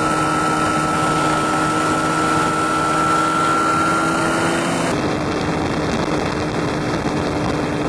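Microlight aircraft engine and propeller running steadily at cruise, a constant engine hum with a slight change in pitch about five seconds in.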